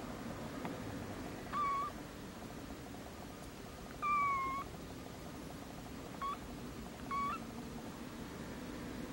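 A three-day-old kitten mewing: four short, thin high-pitched cries, the second one the longest.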